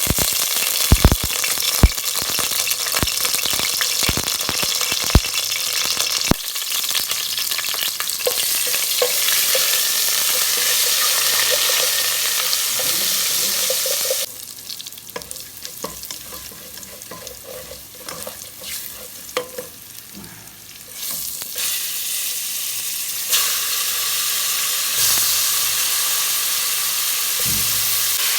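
Devilled chicken sizzling as it fries in a hot pan, with a utensil clicking against the pan several times in the first few seconds. The sizzle turns much quieter for several seconds midway, then comes back at full strength.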